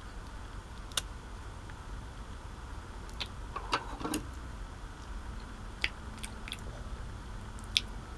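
A table knife scraping and clicking against a small plastic tub of herb butter and the wooden board as the butter is scooped out, heard as a few scattered sharp clicks over a low steady background hum.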